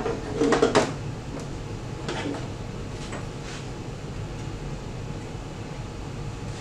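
Clicks and knocks from the front door of a Necta Krea Touch coffee vending machine being shut and latched, a sharp cluster about half a second in and a few fainter clicks after, over a steady low hum.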